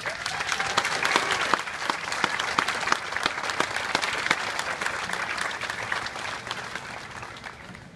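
Crowd of spectators applauding. It starts all at once and fades away over the last couple of seconds.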